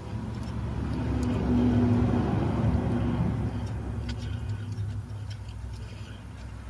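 A vehicle's engine rumble swells over about two seconds and then slowly fades, with a few faint metallic clicks near the end.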